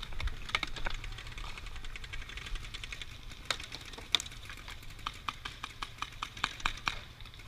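Paintball markers firing: quick, uneven strings of sharp pops, sparse at first and thickest in the second half.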